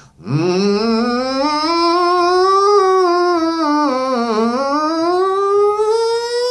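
A man humming with his mouth closed as a singing exercise, leaning into the hum for more volume: one unbroken tone that slides up, dips back down about four seconds in, then climbs higher near the end.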